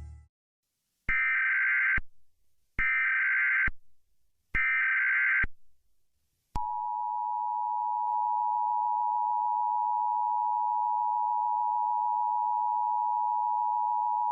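Emergency Alert System header: three short, identical bursts of SAME data tones, each just under a second. They are followed by the EAS two-tone attention signal, a steady dual tone held for about eight seconds. Together they are the standard start of an EAS alert broadcast, signalling that a spoken alert message follows.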